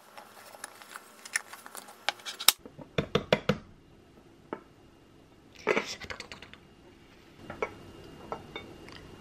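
Clinks and knocks of a speckled enamelware bowl and a white pan being handled, with a quick cluster of knocks about three seconds in and a short scrape just before the bowl is lifted off.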